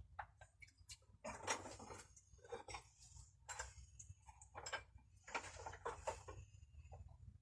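Rummaging by hand through small tool parts: faint, irregular clicks, taps and rustles as pieces are moved about.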